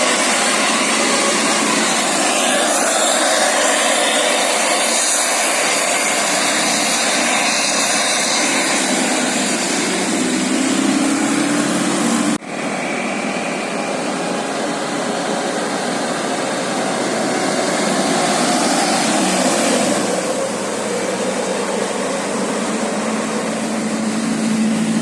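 Steady rushing noise of road traffic and bus engines, with an abrupt cut about halfway through.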